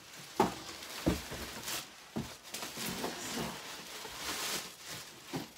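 Plastic wrapping crinkling and rustling as it is handled and pulled off a dressmaker's dummy, with several knocks as the dummy is moved.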